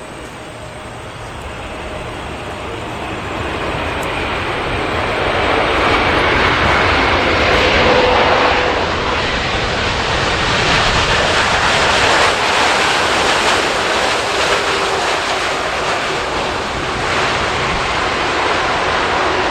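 Jet airliner's engines roaring as the plane passes close by: the roar builds over the first several seconds, peaks around the middle and stays loud, with a faint whine in it.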